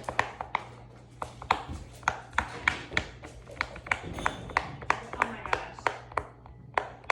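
Large silicone pop-it fidget toy, its bubbles pressed down one after another, each giving a sharp pop, about three a second.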